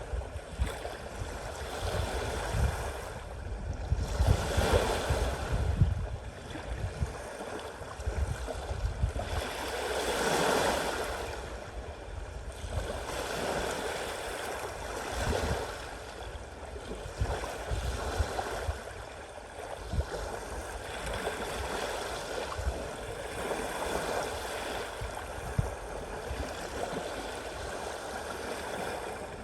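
Sea waves washing and splashing in a continuous wash that swells louder several times, most strongly about ten seconds in.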